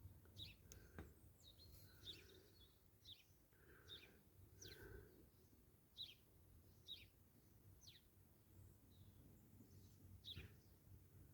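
Faint birdsong from outside: short, high, downward-sliding chirps about once a second over a quiet low room hum.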